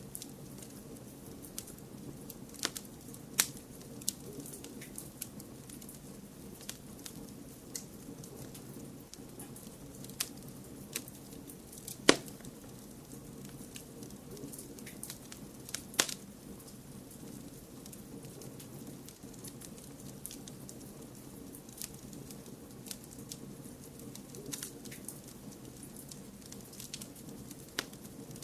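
Wood fire crackling and popping: scattered sharp pops, the loudest about 12 s in and another near 16 s, over a steady low hiss of blended white noise.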